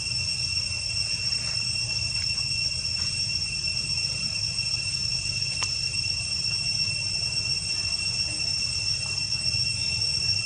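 Steady high-pitched insect drone, one unbroken held tone, over a low rumble, with a faint click about halfway through.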